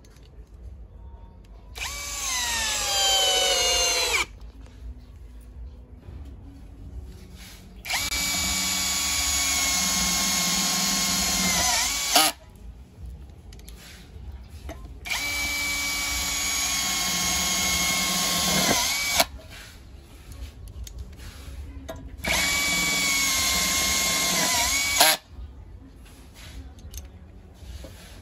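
Cordless Makita drill with a 13 mm chuck driving long wood screws into a wooden beam: four runs of a few seconds each, with short pauses between. The motor whine falls in pitch through the first run and dips at the end of each later run as the screw bites and seats.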